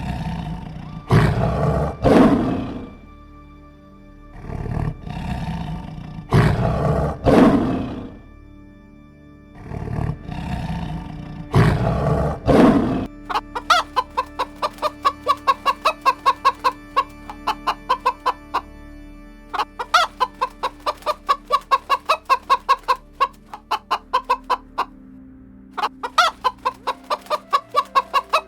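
Three rounds of loud animal roaring, each a pair of long rough calls. About halfway through, a chicken starts clucking in a fast, even run of short clucks, about three or four a second, with two brief breaks.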